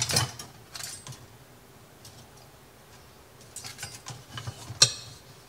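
Electric range controls being set: a sharp click at the start and another just before a second in, a run of light ticking, then a sharp click near the end.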